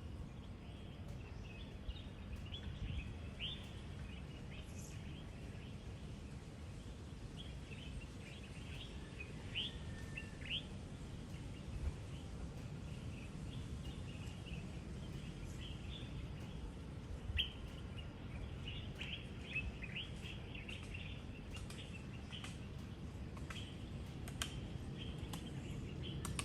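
Small birds chirping and twittering in a morning chorus, many short, quick calls overlapping one another, over a steady low rumble.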